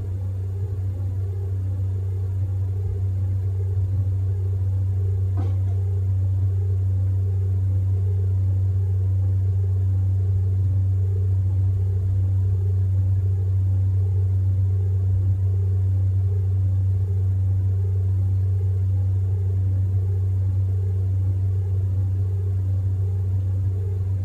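Steady low bass drone of ambient background music, with a faint regular pulse above it.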